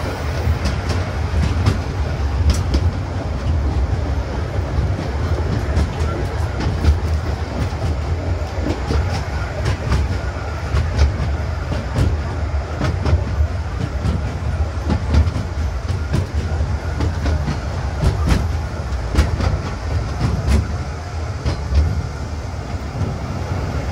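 Sightseeing train running along its track: a steady low rumble with irregular clicks and knocks from the wheels on the rails.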